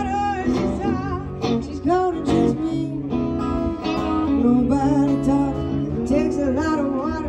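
A live acoustic-and-electric guitar duo playing an instrumental break: electric guitar lead lines with notes that bend and waver, over strummed acoustic guitar.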